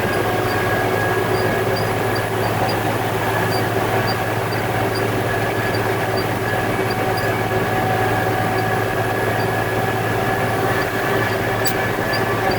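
Concrete mixer truck's diesel engine running steadily at constant revs, with a faint regular tick about twice a second.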